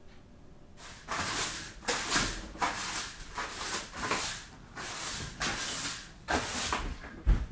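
Cleaning by hand: rough, irregular scrubbing strokes, a few a second, starting about a second in.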